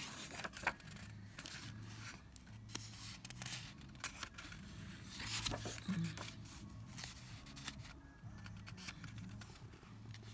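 Paper pages of a CD album's lyric booklet being turned by hand: a run of soft rustles and flicks of the sheets.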